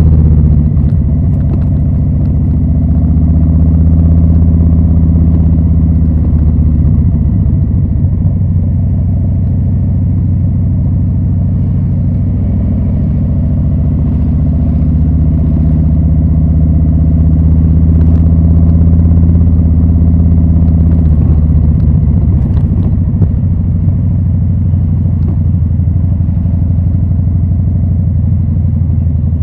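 Harley-Davidson Low Rider S's Milwaukee-Eight 114 V-twin running through Rinehart slip-on mufflers, a loud, deep exhaust note at a fairly steady pitch that shifts slightly a few times.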